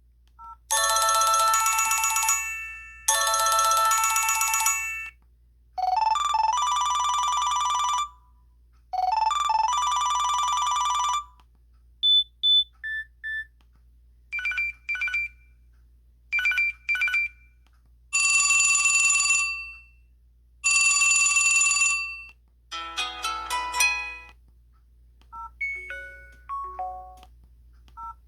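LG 441G phone's built-in ringtones and notification tones playing one after another: a series of short electronic jingles and beeps, each a second or two long, with brief pauses between them and a quick run of notes about two-thirds of the way through.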